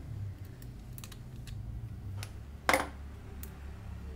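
Small clicks and taps of plastic and metal from hands and a small screwdriver working inside an opened Oppo A37f smartphone, scattered through, with one louder clack a little past halfway.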